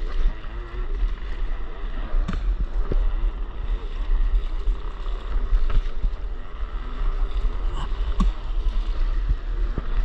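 Wind buffeting a camera microphone held just above the sea, a steady low rumble, with water lapping and splashing close by and a few faint knocks.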